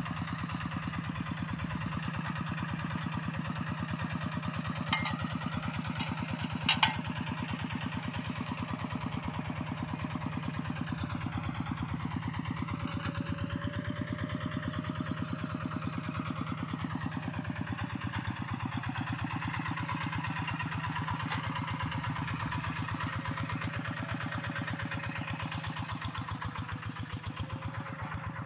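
Hand tractor's single-cylinder diesel engine running steadily with a rapid, even firing beat. Two sharp knocks come about five and seven seconds in.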